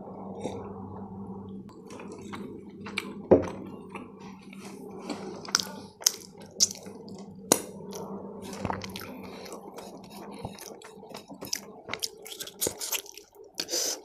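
Close-miked eating sounds: a sip from a mug of tea near the start, then a string of sharp wet mouth clicks and chewing on paratha, getting busier near the end. One louder knock comes about three seconds in.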